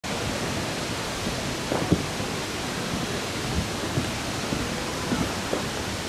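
Steady, even rushing of Fukuroda Falls, a large waterfall, with a few dull low thumps, the strongest about two seconds in.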